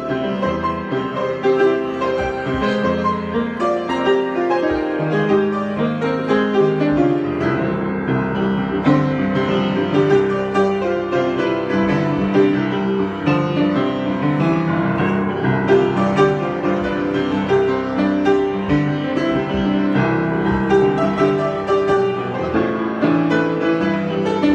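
Solo piano improvisation, a continuous flow of many notes at an even level.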